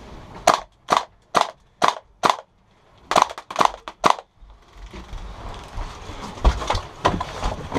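Gas blowback airsoft gun firing on green gas: five sharp single shots about half a second apart, a short pause, then three more. After that comes rustling and thumping movement.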